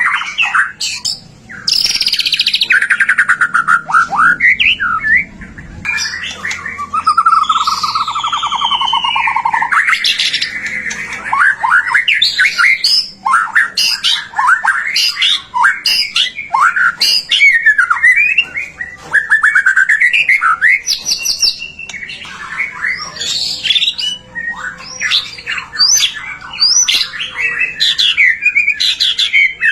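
White-rumped shama singing vigorously and without pause: a rich, varied run of whistles, quick trills and rapid repeated notes, with a lower, longer warbling phrase about a quarter of the way in.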